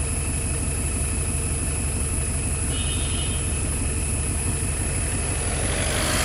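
A vehicle engine idling with a steady low rumble. A broader rush of noise rises near the end.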